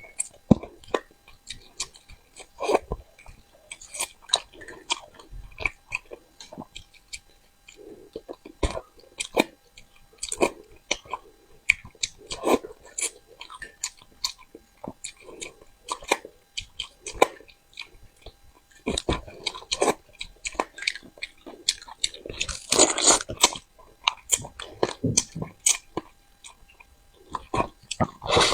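Close-up sounds of a person eating crucian carp: chewing, biting and small wet clicks and smacks coming irregularly. Longer, louder noisy stretches come about two thirds of the way through and again at the end.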